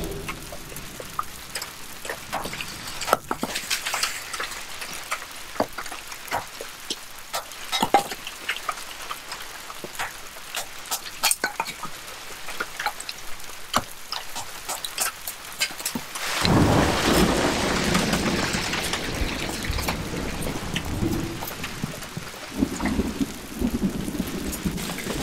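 Rain falling, with many separate drops ticking close by over a light hiss. About sixteen seconds in a louder, fuller rushing noise sets in and carries on to the end.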